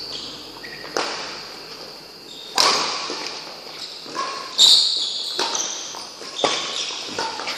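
Badminton rackets striking a shuttlecock in a rally: four sharp hits about two seconds apart, each echoing in a large hall. Short high squeaks from shoes on the court come between the hits.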